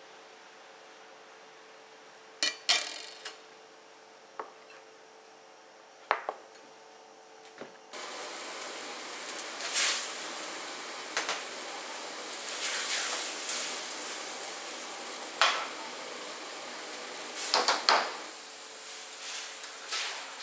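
Cookware and utensils knocking and clinking, a few sharp separate knocks at first. About eight seconds in, a steady hiss starts abruptly and carries on under more clatter.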